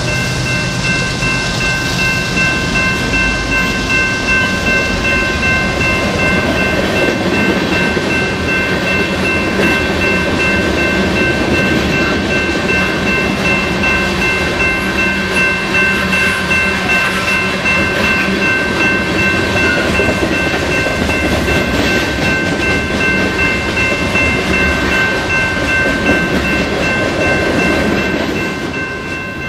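Freight train passing close by. The EMD SD45 diesel locomotives' engines hum in the first few seconds, then a long string of hoppers, tank cars and boxcars rumbles and clacks over the rail joints. A grade-crossing bell rings steadily over it.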